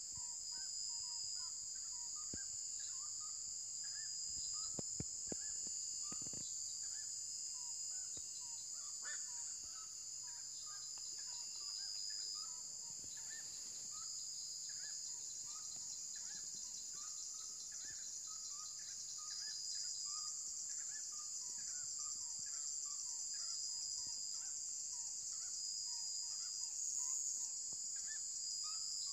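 Night insect chorus: a steady, high-pitched shrill of crickets with a fine pulsing texture, with many short chirping calls scattered lower down and a few faint clicks.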